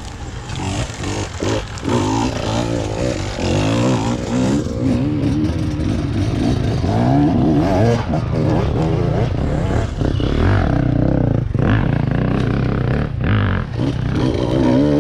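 Enduro dirt bike engines revving up and down, their pitch rising and falling as riders work the throttle through a rocky section.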